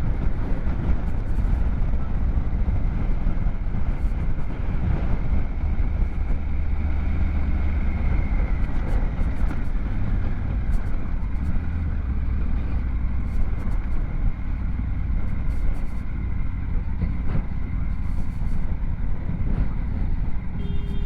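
Steady rumble of a motorcycle's engine and road noise while riding at a constant pace.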